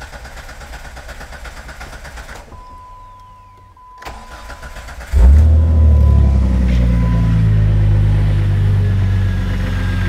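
2003 Jeep Grand Cherokee engine catching about five seconds in and settling into a steady idle, after a short steady beep. It starts only while the engine computer's connector is pushed on, which the technicians put down to the connector or the pins on the computer's board.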